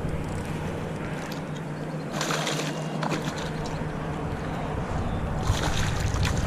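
Water sloshing and splashing around a kayak, two brief splashes about three seconds apart, over a steady low hum.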